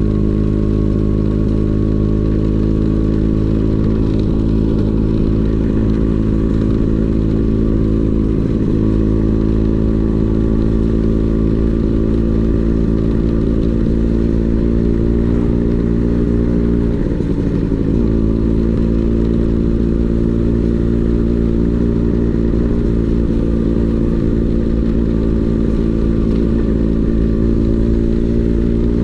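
Vespa scooter's two-stroke engine running through a DRC Victory Racing aftermarket exhaust, cruising at a steady speed with an even drone. About two-thirds of the way through the revs dip briefly and pick up again.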